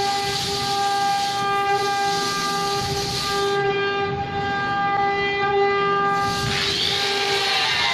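Sawmill saw running with a steady, loud whine; about six and a half seconds in, a hissing rush joins it and the pitch sags slightly.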